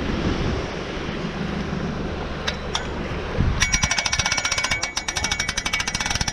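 Boat trailer hand winch being cranked: its ratchet clicks rapidly and evenly, starting about three and a half seconds in. Before that there is a steady rush of wind and surf.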